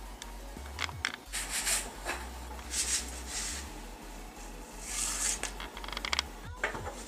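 Soft swishes and a few light clicks and taps of a frying pan being tilted and handled over a wooden cutting board as cooked tortillas are slid out of it.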